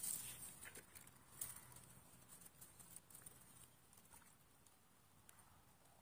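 Near silence, with a few faint clicks and rustles in the first two seconds, then only faint background hiss.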